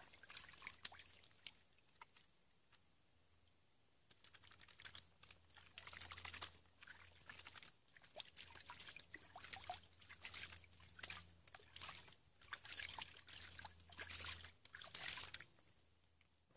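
Creek water splashing and trickling as a hand scoops and swishes it in a shallow rocky stream, in irregular bursts with short pauses between.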